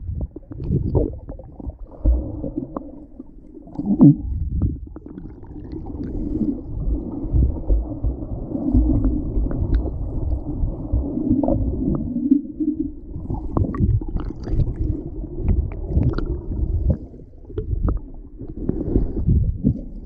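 Muffled underwater rumble and thudding of water moving around a camera held below the surface during swimming strokes. A low droning tone holds for several seconds in the middle. Sharper splashes come toward the end as the camera nears the surface.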